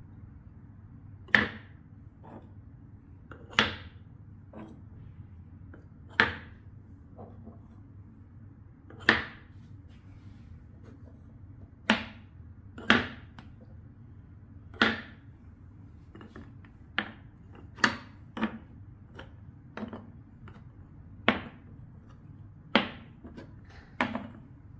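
Painted wooden balls dropped into wooden cups and wooden cups set into wooden bowls: about fourteen sharp wooden knocks, irregularly spaced a second or a few seconds apart.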